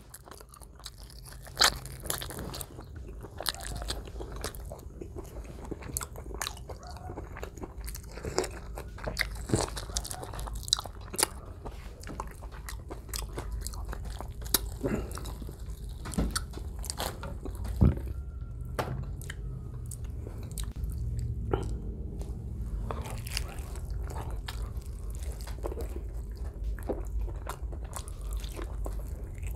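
Close-miked chewing and biting of roasted butterflied chicken asado, with many short crunchy bites scattered through; one sharp crunch about 18 seconds in is the loudest.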